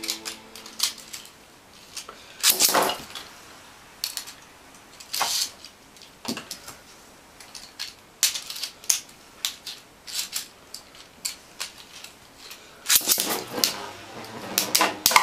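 Scattered sharp clicks and knocks of small hard plastic parts being handled. Then, about 13 seconds in, two plastic Beyblade spinning tops are launched into a small plastic stadium and clatter against each other and the walls.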